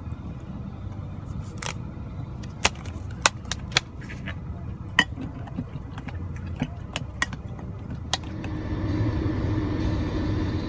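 Scattered sharp clinks of a spoon against a bowl as oatmeal is stirred, about a dozen, uneven in spacing, over a steady low rumble. A louder low hum builds near the end.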